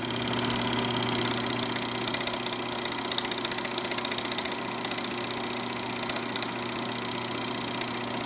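Lumina 1.2 Auto Load film projector running: a steady motor hum under a rapid, even clatter as the film is advanced through the gate.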